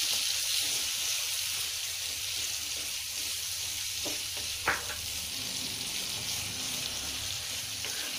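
Chopped onion, capsicum and tomato sizzling in hot oil in a wok while a wooden spatula stirs them, with two light knocks of the spatula against the pan about halfway through.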